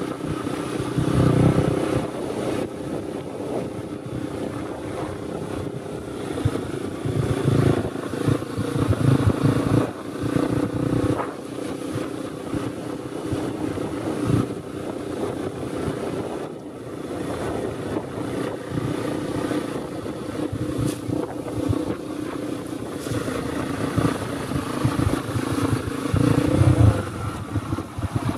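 Dirt bike engine running while the bike is ridden along a rough dirt trail, its revs rising and falling with the throttle and briefly dropping off about halfway through.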